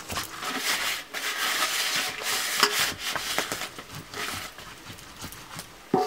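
A round hand stone is rubbed back and forth on a flat grinding stone (Nepali silauto and lohoro), crushing red chilies into a wet paste: a continuous gritty scraping of stone on stone. It is loudest in the first few seconds and fainter toward the end.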